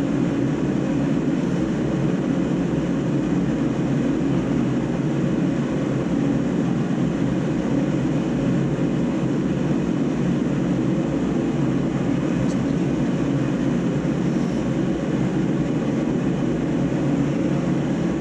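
Steady low mechanical drone that does not change, with one faint click about twelve seconds in.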